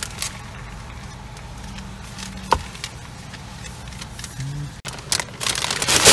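Car engine running, heard from inside the cabin as a steady low hum. A sharp click comes about two and a half seconds in, and rustling and handling noise builds near the end.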